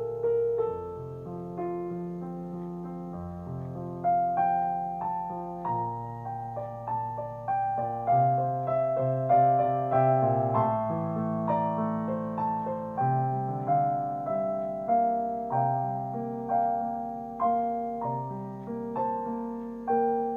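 Slow, relaxing piano music: notes struck one after another and left to ring and fade, over long held low notes.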